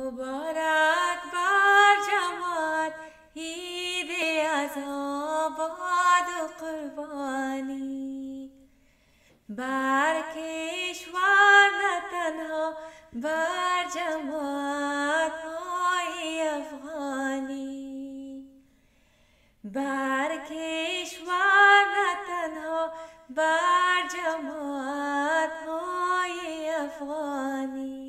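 A woman singing an Eid qasida, an Ismaili devotional song, unaccompanied. She sings three long melodic phrases, with short pauses about nine and nineteen seconds in.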